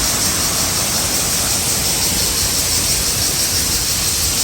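Waterfall: falling water rushing in a steady, loud, even noise.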